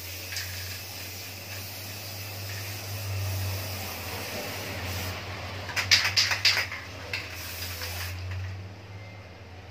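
Aerosol spray can of clear top-coat paint hissing as it sprays a bicycle rim, in two long sprays with a short break a little past halfway. A brief clatter of clicks in that break is the loudest moment, over a steady low hum.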